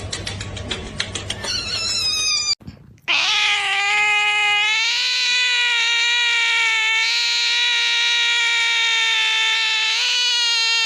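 A cat's single long, steady yowl lasting about eight seconds, which stops abruptly. Before it come a couple of seconds of rapid clicking and a brief gap.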